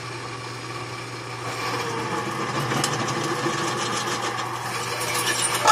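Old drill press motor running with a steady hum while its bit is fed into a metal bracket. The cutting grows louder about a second and a half in, with a rapid fine chatter, and a short sharp sound comes near the end.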